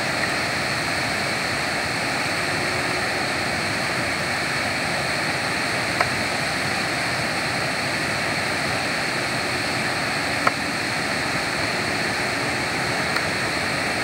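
Steady rushing of water cascading over the rocks of a waterfall, with two brief clicks partway through.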